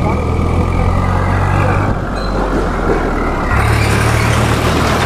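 A large motor vehicle passing close by on an unpaved road: a low engine hum over heavy tyre and road noise. The engine and road noise grow stronger about three and a half seconds in as it draws alongside.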